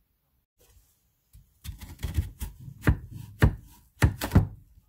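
Korean radish being sliced with a chef's knife on a wooden cutting board: a run of knife knocks on the board starting about a second and a half in, the loudest strokes near the end.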